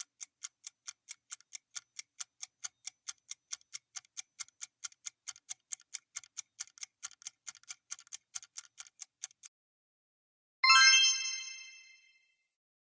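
Quiz countdown timer sound effect: clock-like ticking at about four ticks a second that stops after roughly nine seconds. About a second later a chime of several tones sounds and fades over about a second, marking the reveal of the correct answer.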